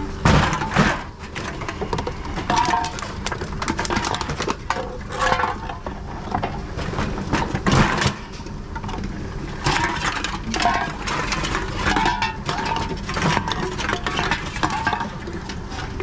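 Aluminium drink cans and plastic bottles clinking and clattering as they are picked from a crate and dropped one after another into a reverse vending machine's intake. The clatters keep coming, with the loudest near the start and again about halfway through.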